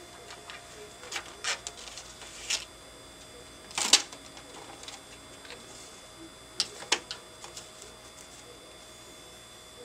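Scattered clicks and knocks from a benchtop film thickness gauge and its metal feed tray being worked by hand while a film sample runs through it. The loudest knock comes about four seconds in, and a quick pair comes near seven seconds.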